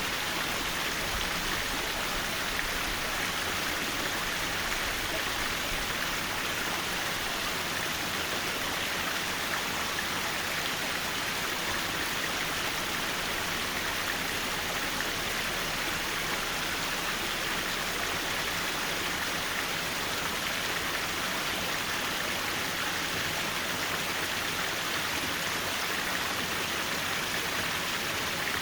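Mountain valley stream flowing over rocks: a steady, even rush of water.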